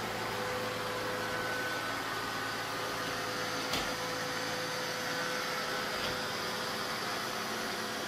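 Neato Botvac D7 robot vacuum running: a steady whir from its motor, with one short knock about halfway through.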